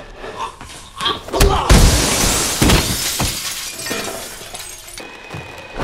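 A few heavy impacts, then a large pane of glass shattering, with the shards crashing and tinkling down and fading away over a few seconds.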